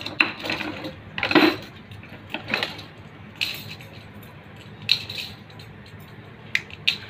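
Steel motorcycle wheel spokes clinking and rattling against each other and the hub as they are threaded in by hand while a wheel is laced, in a series of short, irregular clinks.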